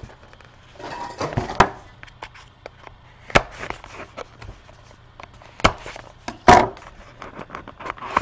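Trading cards and a small cardboard card box handled on a table: a short rustle about a second in, then several sharp taps and knocks as they are set down and picked up.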